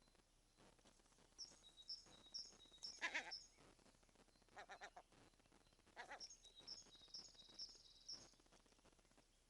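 Birds calling: a bird repeats short, high, evenly spaced notes in two runs. A louder, harsher call comes about three seconds in, with shorter ones near five and six seconds.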